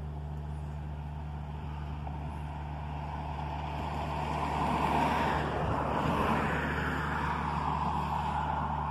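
A car passing by on a road, rising to its loudest about five to six seconds in and then fading, over a steady low hum.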